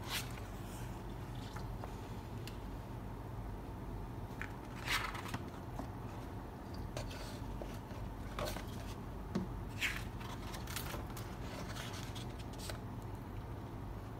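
Paper of a hardcover art book being handled and pages turned by hand: a few short rustles and scrapes scattered through, over a steady low hum.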